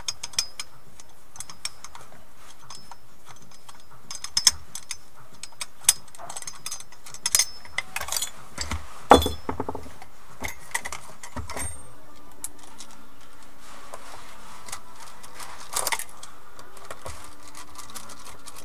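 Parts of an airsoft M4 rifle being handled during disassembly: scattered clicks, taps and rattles of small metal and plastic pieces, with the loudest knock about nine seconds in.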